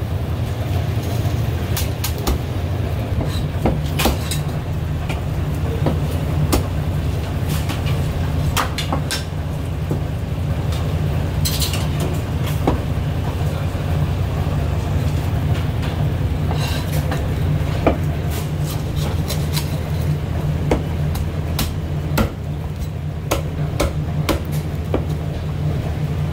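Heavy Chinese cleaver chopping roast goose on a thick round wooden chopping block: sharp, irregular knocks of the blade through the bird into the wood, over a steady low hum.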